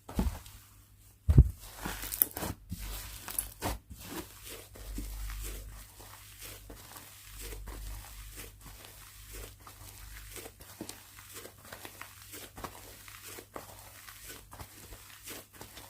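Slime being squeezed, stretched and pressed by hand, giving a continual run of small crackles and sticky clicking pops as air pockets burst, with two louder pops in the first second and a half.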